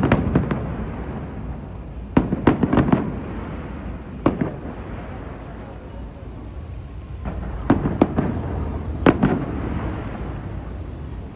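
Aerial fireworks shells bursting: sharp bangs that come in clusters, a rapid string of them about two seconds in, a single one a couple of seconds later, and more near the eight- and nine-second marks, each trailing off into a rumbling echo.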